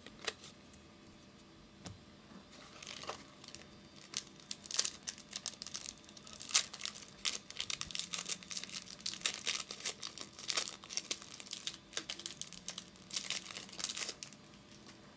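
A trading card pack's wrapper being torn open and crinkled by hand, a dense crackling that starts a few seconds in and goes on for about ten seconds.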